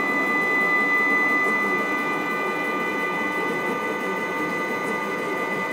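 NEMA stepper motors, wired bipolar parallel, driving the ball-screw axes of a homemade gantry CNC router: a steady whine made of several fixed high tones over a rumbling mechanical hum.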